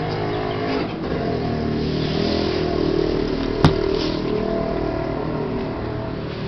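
An engine running with a steady drone that swells a little in the middle, and a single sharp click about three and a half seconds in.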